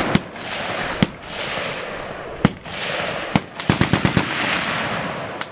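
Gunfire from the firing line: separate single shots about a second apart, then a short rapid burst of automatic fire about three and a half seconds in. A steady rushing noise runs between the shots.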